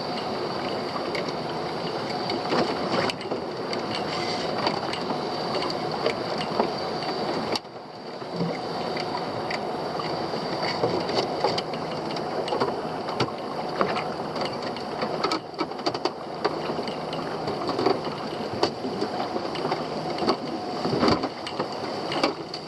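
Small fishing boat's engine running steadily, with scattered knocks and clatter on board.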